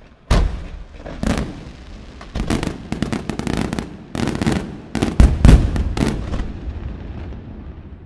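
Fireworks display: a rapid series of loud, sharp reports from aerial shells bursting, the loudest about five seconds in, dying away near the end.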